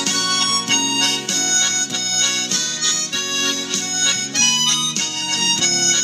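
Harmonica playing a melody, several notes sounding together and changing about twice a second.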